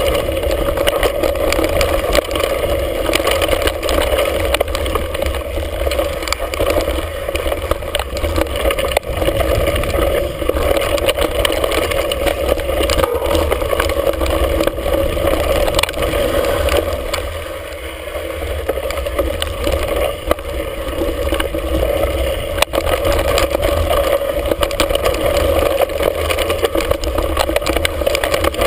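Wind buffeting a handlebar-mounted camera on a mountain bike descending a dirt singletrack, a steady loud rumble, with frequent rattles and knocks from the bike and mount over rough ground.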